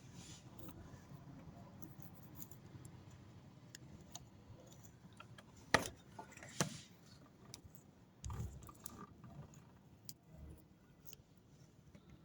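Low steady hum with two sharp clicks a little under a second apart about halfway through, then a duller knock.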